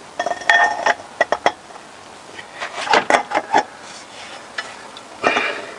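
Steel hand tools clinking and clanking as a long extension bar is fitted onto the T-bar on the socket of a tight sump drain plug: three clusters of sharp metallic knocks, some briefly ringing.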